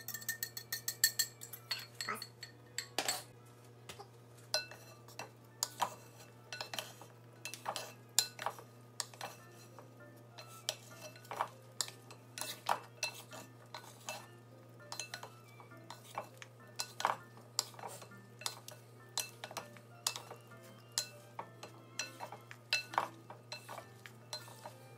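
Two wooden spoons tossing pasta salad in a large ceramic bowl: irregular knocks and clinks of the spoons against the bowl, one or two a second. In the first second or so a whisk clinks and rings against a bowl as the dressing is scraped in.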